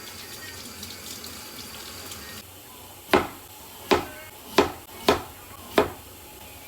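Water running from a kitchen tap, which stops suddenly after about two and a half seconds. It is followed by a knife chopping on a cutting board: six sharp chops, about one every 0.7 s.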